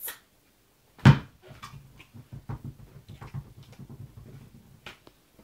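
Breathing in and out of a rubber balloon filled with nitrous oxide: a single loud thump about a second in, then a run of quick, uneven rubbing noises from the balloon.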